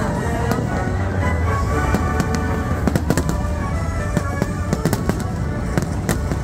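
Aerial fireworks shells bursting in quick succession, many sharp bangs over a low rumble, with orchestral music and crowd voices underneath.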